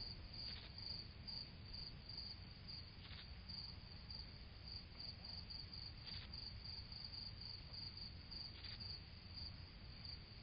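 Faint, steady chirping of crickets in a continuous pulsing trill, over a low background hiss.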